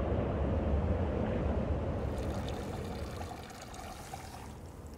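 Thin streams of water trickling and dripping off a mossy rock into a shallow pool, with a low rumble under it for the first couple of seconds; the sound fades out gradually.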